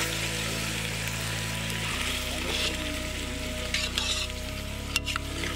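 A metal spoon mixing raw chicken, chopped tomatoes and green chillies in a large metal pot: a wet, hissing squelch with a few clicks of the spoon against the pot near the end. Under it, background music holds low sustained chords that change every couple of seconds.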